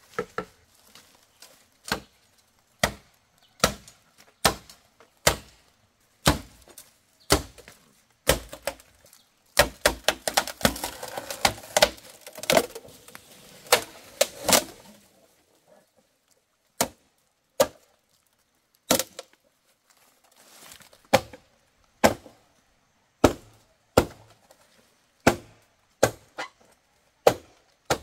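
Chopping with a blade into wood, sharp blows about one a second, with a flurry of quicker strikes in the middle.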